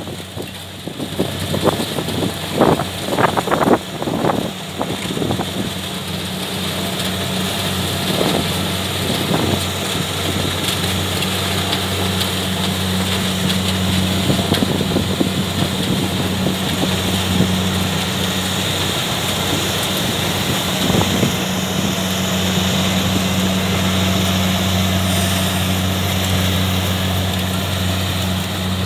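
Engine of a Kubota rice-harvest machine running steadily, a constant low hum with no change in speed. A few short knocks sound in the first few seconds.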